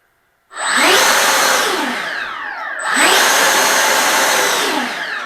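80mm electric ducted fan of a Freewing F-86 Sabre RC jet being throttled up twice: a loud rising whine-and-rush about half a second in, easing back a little, then spooling up again about three seconds in and winding down near the end.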